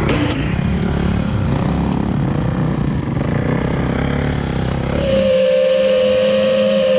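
Off-road UTV engine running with a rough, low rumble. About five seconds in, the sound changes abruptly to a steady high whine.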